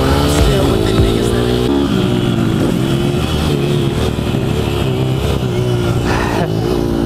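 Pit bike's small single-cylinder four-stroke engine running hard under throttle through the turns, its pitch rising and dipping as the rider works the throttle, with wind rush over the microphone.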